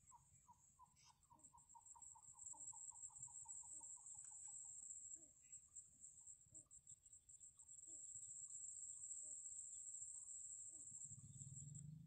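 Faint, fast peeping of nestling marsh birds begging at the nest, about five soft notes a second for the first five seconds, then scattered single peeps. Over it runs a steady high insect trill.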